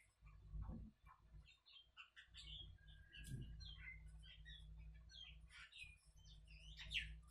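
Faint squeaks and scratches of a marker pen writing on a whiteboard, in short irregular strokes, over a low steady hum.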